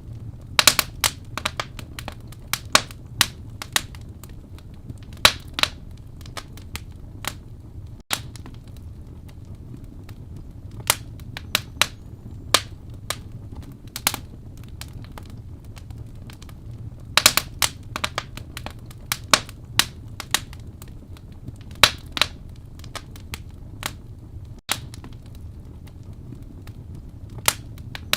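Wood fire burning in a fireplace, crackling with irregular sharp pops that come in clusters, over a steady low rumble of the flames.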